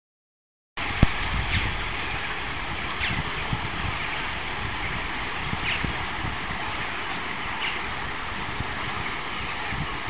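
Water rushing steadily over the small concrete steps of a stepped weir in a channel, with a low uneven rumble beneath. A single sharp click about a second in.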